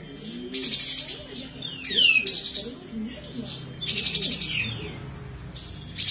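Caged kapas tembak bulbul singing: three loud, fast rattling high trills a second or two apart, one slurring into a falling whistle, with fainter low warbling underneath.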